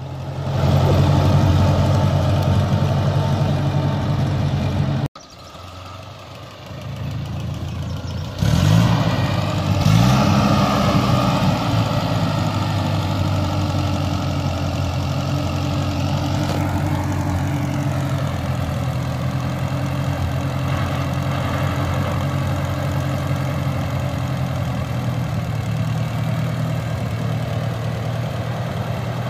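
A farm vehicle's engine idling. It cuts off abruptly about five seconds in, runs quieter for a few seconds, then picks up speed with a rising pitch about eight seconds in and settles into a steady run.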